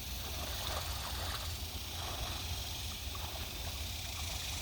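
River water rushing and splashing through shallow rapids: a steady hiss with small irregular splashes, over a steady low rumble.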